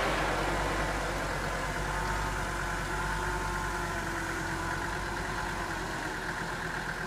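UAZ-469's engine idling steadily.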